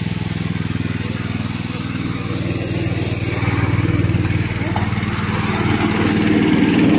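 Petrol engine of a remote-controlled tracked lawn mower running steadily, growing somewhat louder a few seconds in and again near the end.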